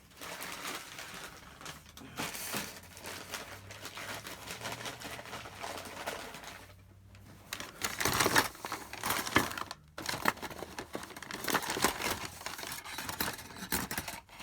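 Rummaging for small tools: rustling and crinkling of plastic packaging with irregular small clicks and clatters of metal and plastic, getting busier and louder about halfway through.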